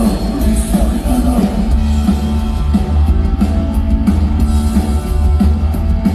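Live rock band playing on stage through the PA: electric guitar, bass guitar and drums, loud and continuous.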